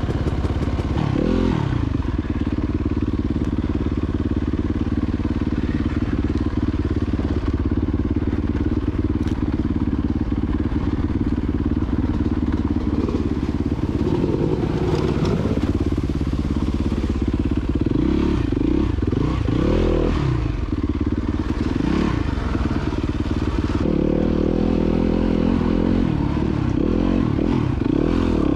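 Dirt bike engine running under way, its revs rising and falling several times as the rider works the throttle.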